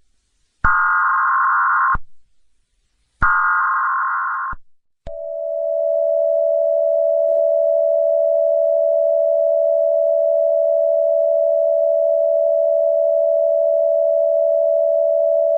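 Emergency Alert System broadcast tones: two short buzzy digital data bursts of the EAS header, then from about five seconds in the long, steady two-tone EAS attention alarm.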